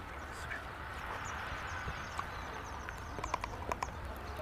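Faint outdoor background noise with a low rumble, broken by a few light clicks, with a quick run of them about three seconds in.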